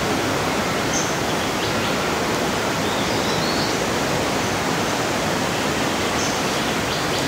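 Steady, even hiss of background noise with no change in level, with a few faint light clicks at about one second, two seconds and near the end.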